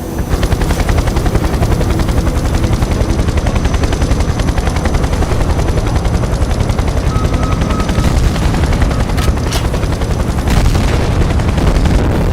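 A rapid, unbroken train of loud low thuds, many a second, with a few sharper cracks near the end.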